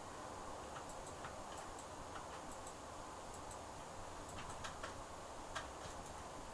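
Faint, irregular light clicks and taps of an acrylic nail brush against the powder pots and a plastic practice nail tip, over a low steady hiss.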